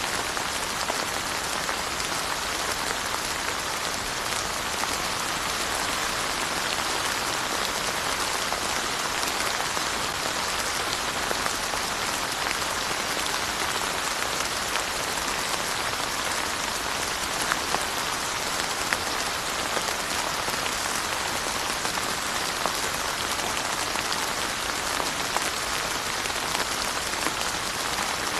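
Steady rain falling, an even hiss of rainfall with fine scattered drop ticks.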